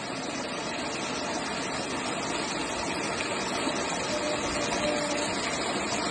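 Steady rush of floodwater flowing fast down a street.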